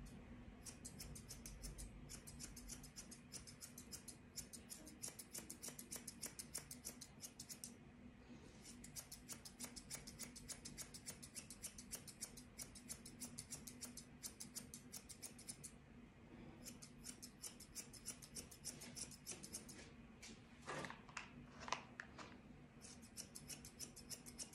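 Grooming scissors snipping quickly and steadily through a cocker spaniel's long coat, faint. They run in long stretches broken by short pauses, with a couple of brief handling noises near the end.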